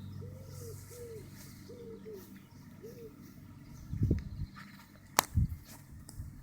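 A bird cooing in a run of short arched notes, about two a second, over a steady low hum. The cooing stops about three seconds in, and two loud knocks follow near the end.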